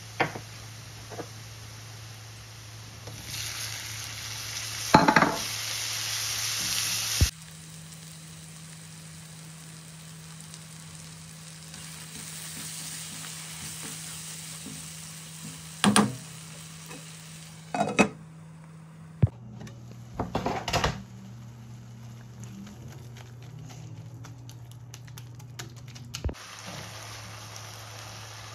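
Onion-and-spice masala frying in a nonstick pan, with a spatula now and then scraping and knocking against the pan in several short clatters. A steady low hum runs underneath, and the background changes abruptly a few times.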